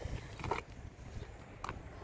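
Low, uneven rumble of wind buffeting the microphone, with two short sharp clicks, about half a second in and near the end.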